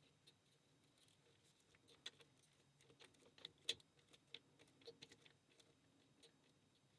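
Faint small metallic clicks and light scrapes of a tension wrench and pick working in the keyway of an Abus Brady 41/40 padlock. The clicks come irregularly, most thickly in the middle stretch.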